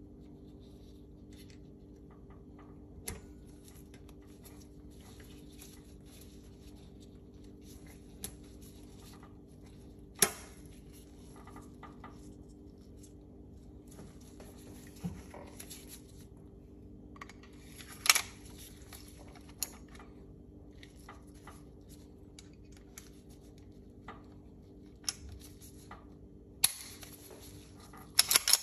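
Scattered sharp metal clicks and clinks of a Tanfoglio Stock II pistol's slide, recoil spring and guide rod being handled and reassembled by hand, over a steady low hum. Near the end comes a quick run of clicks as the slide goes back onto the frame.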